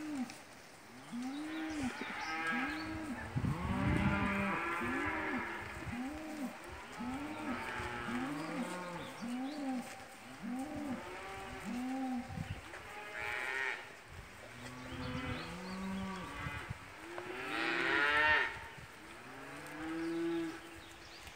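Several cattle mooing over and over, short overlapping calls about one a second, with louder calls around four seconds in and again near the end.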